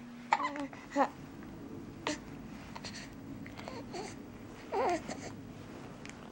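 An infant babbling in several short, separate vocal sounds with pauses between them, the longest a wavering one about three-quarters of the way through.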